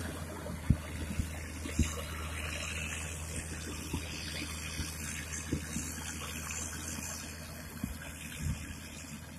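Diesel engine of a Dynapac single-drum road roller running steadily close by, a low even hum, with a few sharp knocks, two loud ones in the first two seconds.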